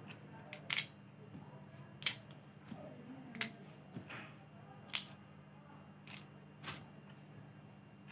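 A snack wrapper and a thin plastic bag crinkling as the snack is unwrapped by hand: sharp crackles at irregular intervals, over a steady low hum.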